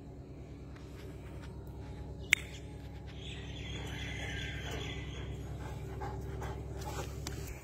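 Pakistani bully kutta panting with its tongue out, louder from about three seconds in, over a steady low rumble. A single sharp click comes a little over two seconds in.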